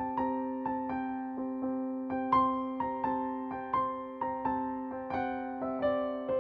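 Background music: a gentle piano melody of evenly paced single notes over a sustained low chord.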